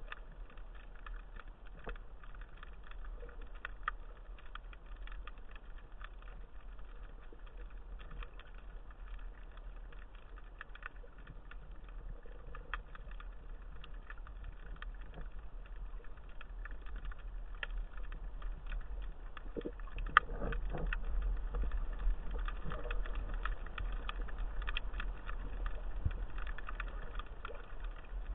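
Underwater ambience: a steady low rumble with scattered faint clicks and crackles, one sharper click about twenty seconds in, after which it grows a little louder.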